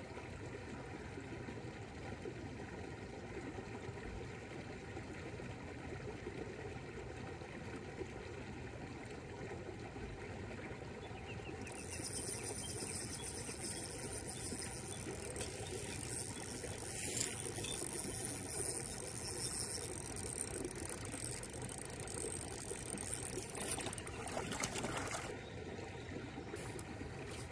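Splashing water over a steady outdoor background of moving water: about twelve seconds in, a hissing splash starts and goes on, with a few sharper splashes, until it stops abruptly near the end. It is a hooked trout thrashing at the surface while it is reeled in and netted.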